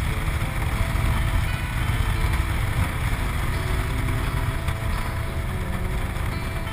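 Suzuki Gladius SFV650 V-twin engine running steadily under way, with wind noise on the microphone.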